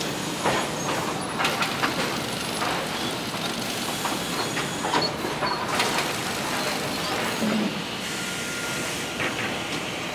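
Rip-saw line running in a woodworking plant: a steady machine noise with boards knocking and clattering irregularly on the chain conveyor and outfeed table.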